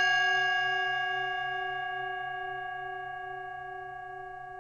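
A single struck meditation bell ringing out, its clear tone with several overtones fading slowly and evenly, with a faint wavering beat in its lower tones.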